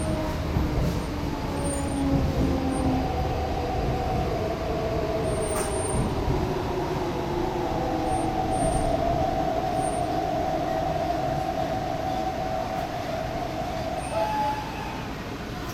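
MTR East Rail line R-Train electric multiple unit running, heard from inside the carriage: a steady rumble of wheels on track with the electric traction motors' whine over it. The whine slides slowly in pitch early on, then holds level through the middle.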